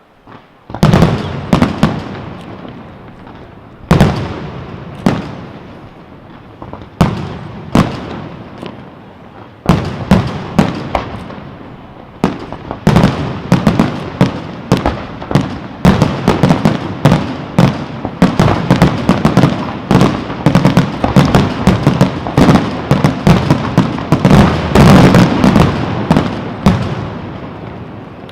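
Aerial firework shells bursting in a display: single loud bangs a second or two apart at first, then from about halfway a rapid, dense barrage of bursts that builds almost to the end before fading.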